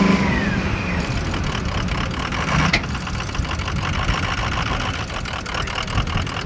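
Vehicle engine running under load as a pickup truck tows an SUV stuck in snow with a strap, with one sharp click a little under three seconds in.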